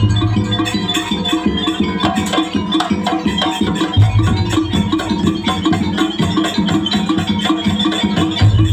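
Jaranan music from a live traditional percussion ensemble: fast, dense drumming and struck pitched percussion, with a deep low stroke about every four seconds.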